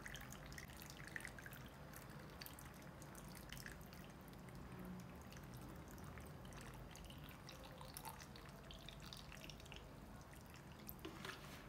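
Salt brine poured from a plastic bottle into a plastic jug packed with pickling vegetables: a faint, steady trickling and dripping.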